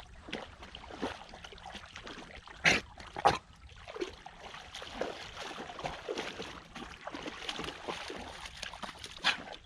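Hunting dogs splashing in water: a string of irregular splashes, with two loud ones close together about three seconds in and another near the end.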